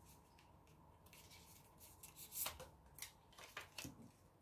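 Faint, short swishes and light taps of an oracle card being drawn from the deck and laid down on a smooth tabletop, a handful of them in the second half.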